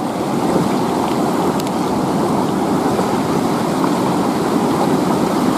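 River water rushing over rocks and through rapids, a steady, unbroken wash of flowing water.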